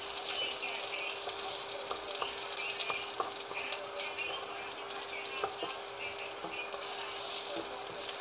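Sliced onion rings sizzling and crackling in a little hot oil in a nonstick wok, with a nylon spatula scraping and tapping against the pan as they are stirred. A faint steady hum runs underneath.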